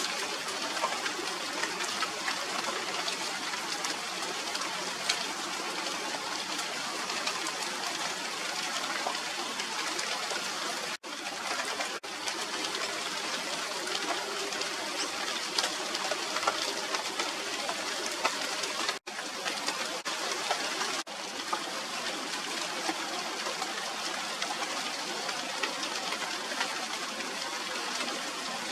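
Steady rain falling on a tree's leaves, a constant hiss dotted with the ticks of single drops. It is broken twice by a momentary dropout.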